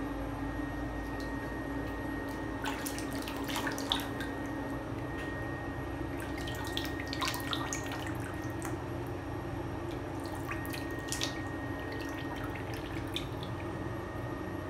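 Water dripping and splashing in a bathtub in three short clusters of clicks and small splashes, over a steady background hum.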